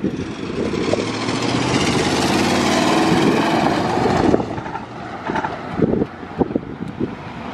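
Passenger train rolling away on the rails, wheel and engine noise building to a peak and then dropping off sharply about four seconds in, followed by a few scattered knocks.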